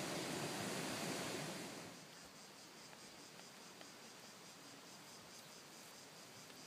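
Small camping gas stove burner hissing steadily under a pot of water, then cutting off abruptly about two seconds in as the flame is shut off. A fainter fast, even high pulsing and light rustling remain.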